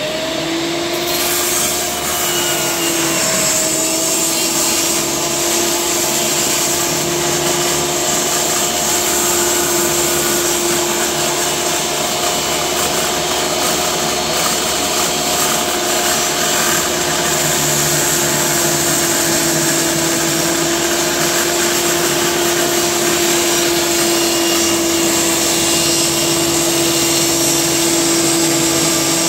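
Makita MLT100 table saw running with a steady motor whine while ripping a long softwood structural board lengthwise, the board fed slowly through the spinning blade.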